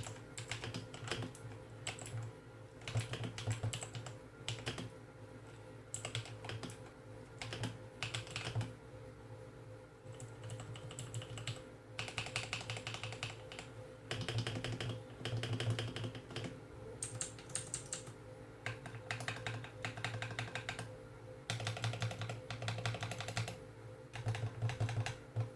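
Typing test on a Huoji 78-key mechanical keyboard with clicky blue switches, lubed and foam-modded with yoga mat: bursts of rapid keystrokes broken by short pauses. A steady low hum runs underneath.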